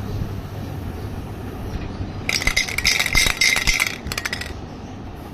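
Aerosol spray-paint can being shaken, its mixing ball rattling rapidly for about a second and a half, then a few more rattles.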